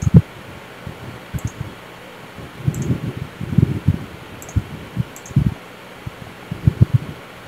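Computer mouse clicking now and then, with irregular soft low thumps and a faint steady hiss.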